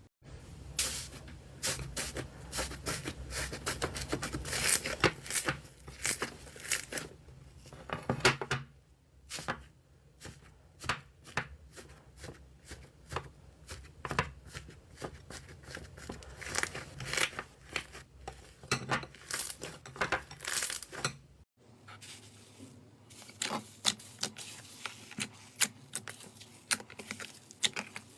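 Slime being squeezed, stretched and poked: a dense run of sticky crackling and popping clicks. A low background hum drops out about three quarters of the way through.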